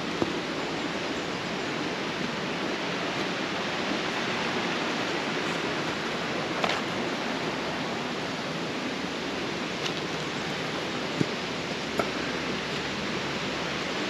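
Steady rushing of a small hillside stream running over rocks, with a few sharp clicks now and then.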